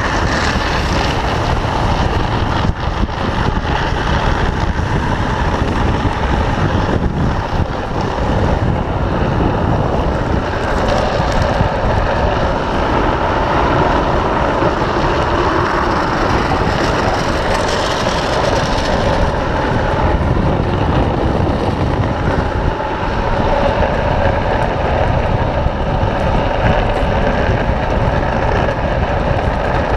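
Drift trike's PVC-sleeved rear wheels sliding on asphalt: a loud, steady, rushing scrape.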